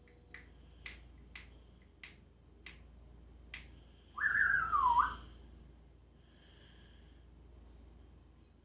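Six sharp clicks spaced about half a second apart, then a loud, whistle-like parrot call lasting about a second that glides down in pitch, followed by faint short whistled notes.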